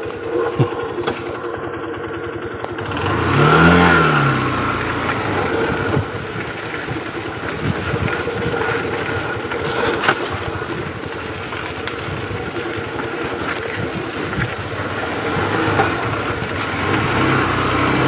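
Motorcycle engine running while riding along a dirt forest track, revving up and back down once about three to four seconds in, with scattered short knocks and rattles.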